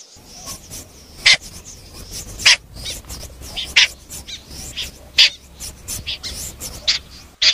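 Common snipe calling: short, harsh calls repeated, a loud one about every second and a half with fainter ones between, over a faint low hum.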